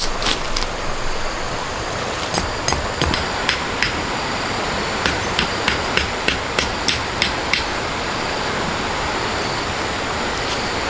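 A series of sharp knocks over a steady rushing noise. The knocks come irregularly at first, then about three a second for a couple of seconds, and stop before the end.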